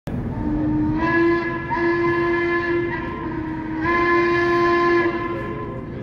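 Steam whistle of C&O 2-6-6-2 Mallet locomotive 1309 sounding two long blasts, the second starting about four seconds in, over the low rumble of the approaching engine.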